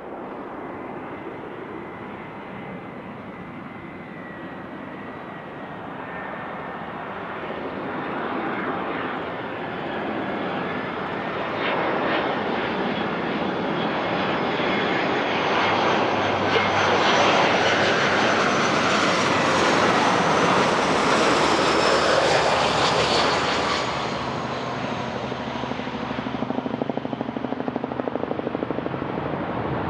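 Airbus A319 corporate jet's twin turbofan engines: jet noise with a high fan whine, growing louder over the first half, loudest for several seconds past the middle, then fading as the airliner passes.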